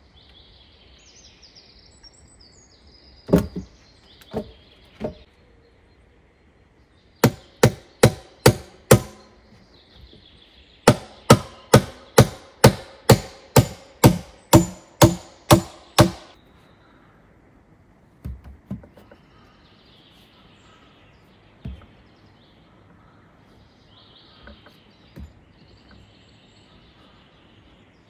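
Sharp, evenly paced blows striking wood: a few single knocks, then a run of five strikes, a short pause and a run of about a dozen more at about two a second, each with a brief ring. Small birds chirp faintly in the quiet stretches.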